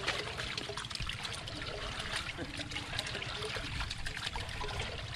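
Hands sloshing pieces of raw meat around in a large aluminium pot of water to wash them, with many small irregular splashes and trickles.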